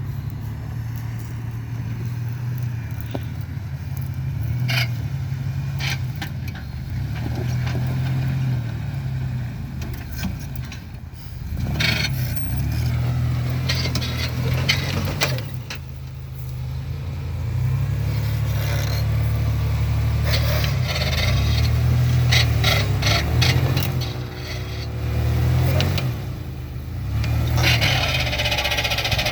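Chevrolet Astro 4x4 van's engine revving and labouring under load off-road, swelling and easing with the throttle, with knocks and scraping along the way. The uploader puts the rubbing down to bad motor mounts letting the engine shift so that a pulley rubs.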